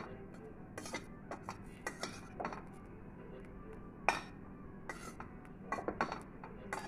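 Steel spatula scraping and tapping against a stainless steel pan while stirring grated coconut and poppy seeds as they dry-roast: irregular scrapes and clinks, the sharpest a little after four seconds in.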